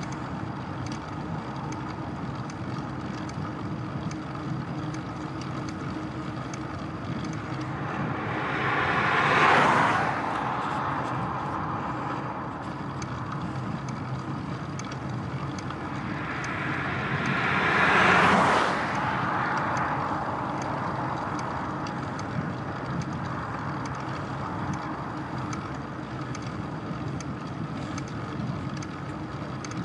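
Two motor vehicles passing a moving bicycle on a country road, one about nine seconds in and another about eighteen seconds in, each swelling up and then fading away. Between them, the steady rushing wind and road noise of the ride continues.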